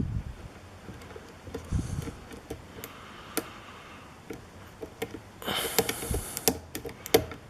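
Lock pick clicking and scraping against the pins inside a pin-tumbler lock cylinder under tension, with scattered small clicks and a busier run of scraping and clicks about two-thirds of the way through.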